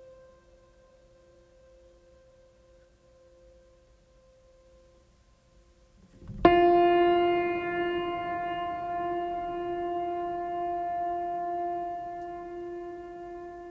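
Ambient music: a held tone fades out, then about six and a half seconds in a new sustained chord strikes suddenly and rings on, slowly decaying with a gentle pulsing.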